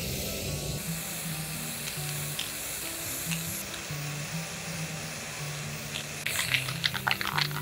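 Aerosol spray-paint can hissing steadily as paint is sprayed, over background music. About six seconds in, a quick run of sharp ticks starts and is the loudest part.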